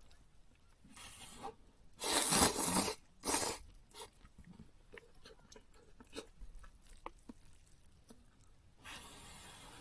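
Irregular rustling and scraping noises with small clicks and knocks in between, like things being handled at close range; the loudest rustle comes about two seconds in.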